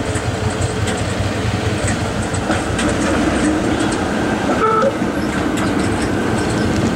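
PCC streetcar rolling past close by, its wheels clicking over the rails and trackwork in a steady rumble. A brief tone sounds about two-thirds of the way through.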